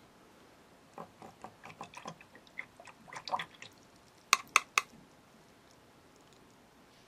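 Light, irregular clicks and taps of small hard objects being handled for a couple of seconds, then three sharp clicks in quick succession, the loudest sounds.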